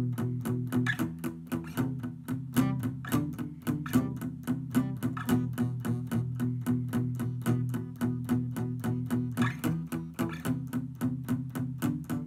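Steel-string acoustic guitar picked in a steady repeating pattern, about four to five notes a second over ringing low strings.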